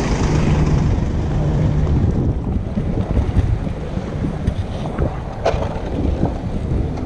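Wind buffeting the microphone over a low rumble as a wheelchair with an Attitude electric bike attachment rides along a paved road. A steady low hum runs for the first two seconds, and a few light clicks come about five and a half seconds in.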